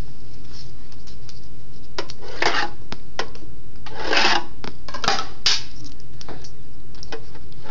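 Skateboard bearings dropped down a Tech Deck ramp, clattering and rolling through cardboard tubes: a string of sharp metal clicks and short rattles, the loudest about four seconds in.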